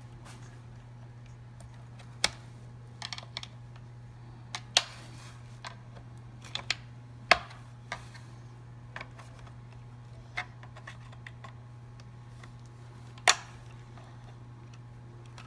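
Plastic hoverboard shell being handled and pressed onto its frame: a dozen or so irregular sharp clicks and knocks, loudest about two, seven and thirteen seconds in, over a steady low hum.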